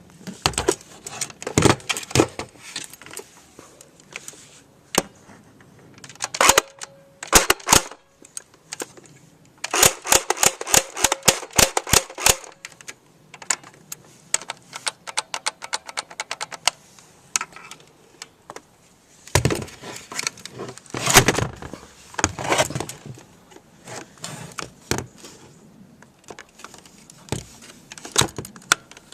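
Rapid-fire BB gun firing and being worked: sharp clicks and snaps in clusters, with a fast, even run of shots about a third of the way in and scattered handling clicks between bursts.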